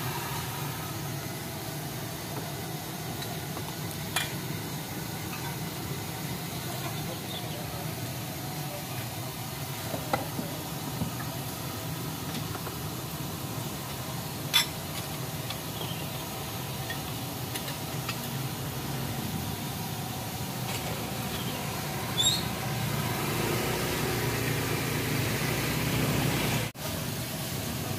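Steady low hum and hiss of background noise around a street noodle cart, broken by a few sharp clinks of bowls and spoons being handled, the loudest about halfway through. The sound cuts out for a moment near the end.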